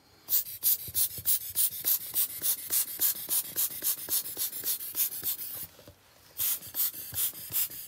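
Quick short puffs of air, about three a second, pushing wet alcohol ink across the card, with a brief pause about five and a half seconds in.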